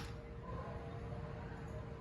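The battery hydraulic crimping tool's motor cuts off right at the start. After that there is only quiet room tone with a faint steady hum.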